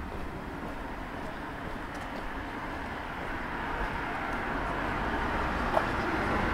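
Street ambience with a car coming along the wet road, its tyre noise growing steadily louder.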